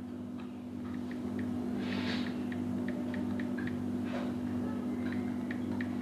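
iPhone on-screen keyboard clicks as an email address is typed: short, light ticks, two or three a second, over a steady low hum.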